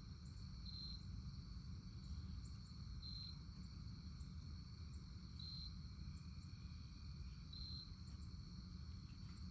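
Insects trilling: a steady high buzz that swells into a louder pulse about every two seconds, over a low rumble.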